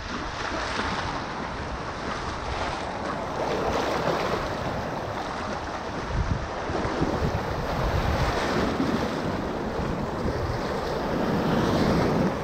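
Shallow surf washing in and out around a person wading and pulling a shark through it, with splashing and wind on the microphone. The wash swells and eases several times, loudest near the end.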